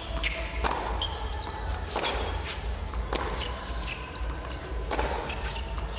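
Tennis ball being hit back and forth in a doubles rally: sharp racquet strikes and ball bounces every second or so, each with a short echo.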